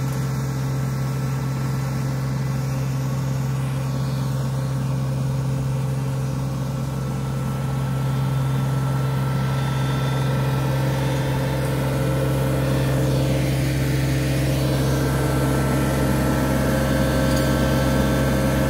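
John Deere 35D compact excavator's diesel engine running steadily, a little louder from about eight seconds in.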